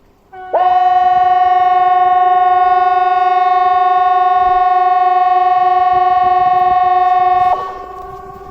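CA 370 outdoor warning siren sounding its test signal: a steady, loud tone that starts about half a second in and is held at one pitch for about seven seconds, then cut off abruptly, leaving a fainter echoing tail.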